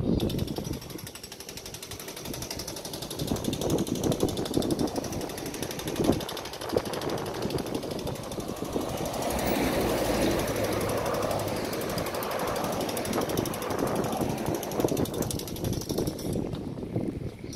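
Pneumatic jackhammer breaking up concrete, a rapid, steady rattle of blows. Road traffic swells as a lorry passes about halfway through.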